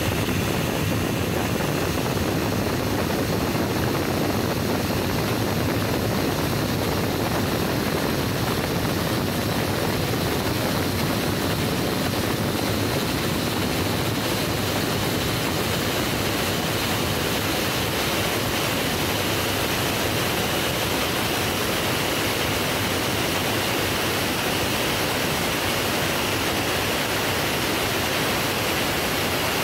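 Parkside PMB 1100 portable metal band saw running, a loud, steady, even noise that does not change.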